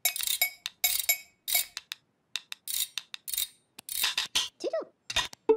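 Kitchen utensils, spoons among them, tapped and clacked together in an uneven rhythm of short clacks, about two a second, with a brief gliding tone near the end.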